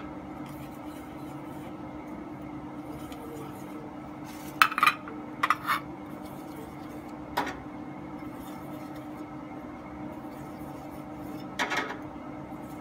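Aluminium idli plates clinking as they are handled and greased by hand: a few sharp metallic clinks, two pairs around the middle, a single one a little later and a short cluster near the end, over a steady low hum.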